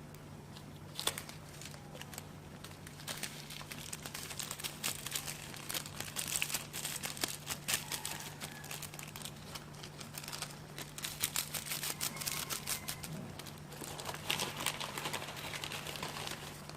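Plastic food packet crinkling and being torn open: a long run of irregular sharp crackles, busiest near the end, over a steady low hum.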